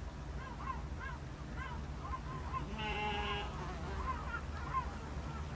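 Birds calling: short repeated chirping calls, with one longer call about three seconds in, over a steady low background rumble.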